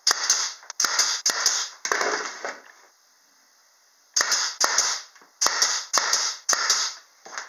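Pneumatic brad nailer firing brad nails into plywood. It gives a run of sharp cracks, pauses for about a second and a half, then fires a longer run, about a dozen shots in all.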